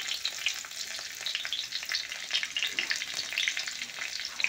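Hot oil sizzling and crackling in a steel kadhai as a green spice paste fries, with many small pops spattering throughout.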